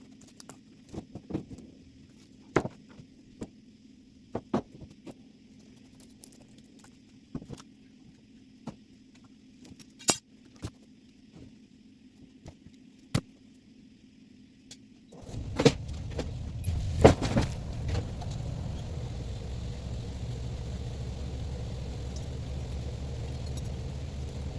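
Scattered light clicks and rattles, then about fifteen seconds in a vehicle engine starts with a couple of loud knocks and settles into a steady idle.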